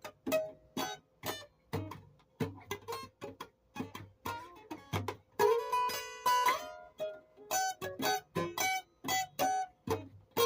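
Music on a plucked string instrument: a steady run of single picked notes, each dying away quickly, with a longer ringing chord a little past halfway.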